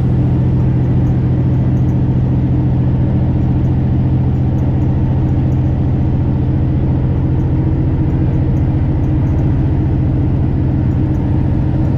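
Detroit Series 60 12.7-litre inline-six diesel of a semi truck holding a steady drone at highway cruise, heard from inside the cab. The engine has a newly replaced turbocharger and exhaust manifold.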